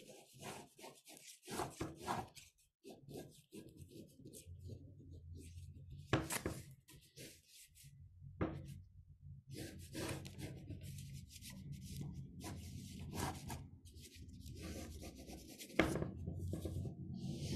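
Drawing on paper close to the microphone: quick, irregular scratchy strokes of a pencil or pen, with a low steady hum underneath.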